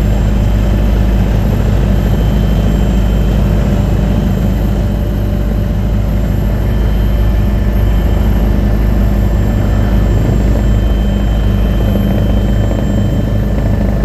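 Helicopter rotor and engine running steadily in flight, a loud continuous low drone, heard from aboard the aircraft.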